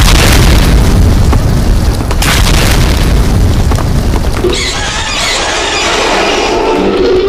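Deep explosion booms that set in abruptly, with a second blast about two seconds in. About four and a half seconds in they give way to a higher monster screech.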